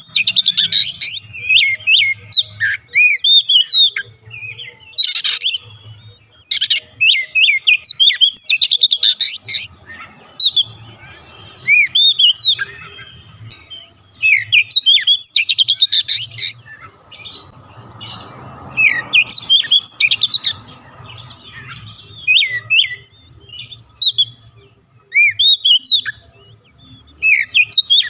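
Oriental magpie-robin singing in repeated phrases of clear sliding whistles mixed with fast rattling trills, with short pauses between phrases.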